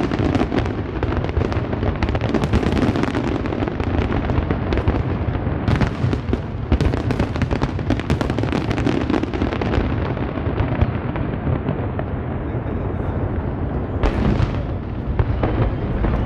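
Aerial fireworks display: many shells bursting at once in dense, rapid bangs and crackling over a deep rumble. It thins out after about ten seconds, with one last cluster of cracks near the end.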